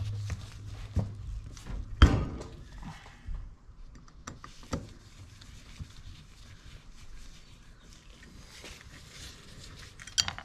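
Irregular knocks and clinks of metal motorcycle clutch parts being handled and pressed together on a workbench. The loudest knock comes about two seconds in, with a few lighter ones in the middle and a sharp one near the end.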